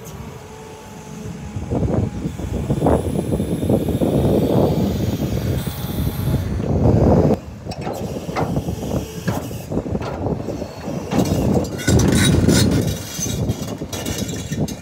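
CAT 320 Next Generation excavator's diesel engine and hydraulics working as the tiltrotator turns and tilts the bucket. The sound rises and falls several times as the hydraulics take load, with a few sharp knocks.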